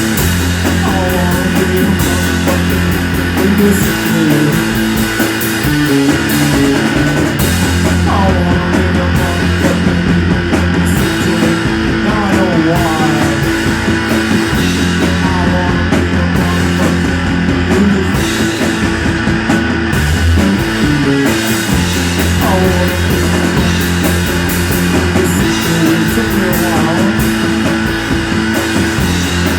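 Rock band playing live, with guitars over sustained low chords and drums.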